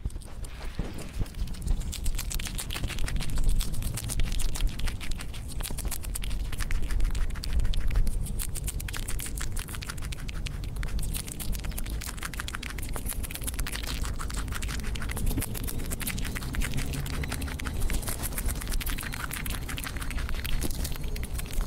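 Ground squirrel chewing a dandelion stem and flower right into a small microphone: fast, crisp nibbling and crunching clicks, with a low rumble underneath.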